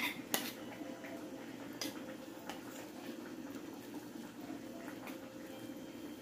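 Metal spoon stirring manioc flour into broth in a glass bowl: a faint wet, mushy stirring with a few light clicks of the spoon against the bowl, two near the start and one about two seconds in. A steady low hum runs underneath.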